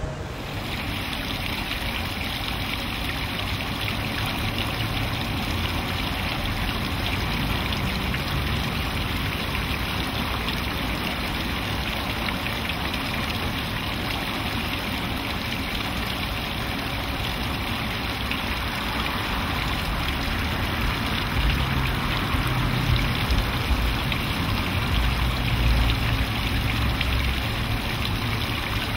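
Water from a stone fountain falling and splashing into its basin: a steady rush. A low rumble underneath grows louder in the last several seconds.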